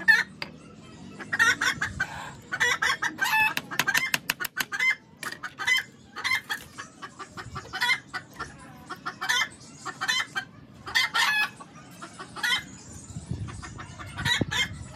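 Chickens clucking: a string of short calls, about one or two a second.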